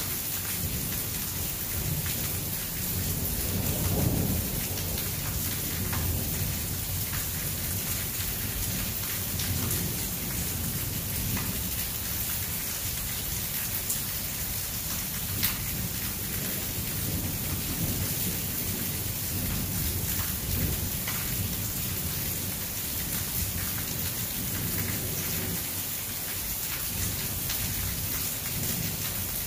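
Steady rain falling on hard surfaces, with low rumbling thunder that swells about four seconds in. A few sharp ticks of close raindrops stand out.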